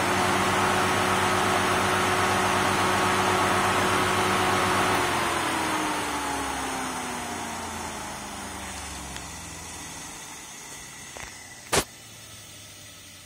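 Electric motor with a drill chuck and disc on its shaft running at full speed with a steady hum and whine, then winding down, the whine falling slowly in pitch as it coasts toward a stop. A sharp click near the end.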